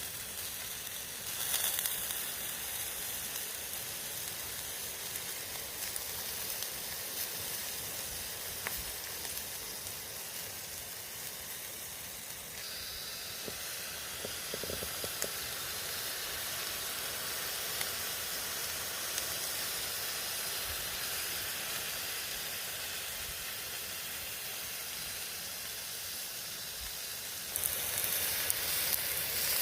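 Steak frying in a pan on a camping stove: a steady sizzle and hiss, growing louder near the end.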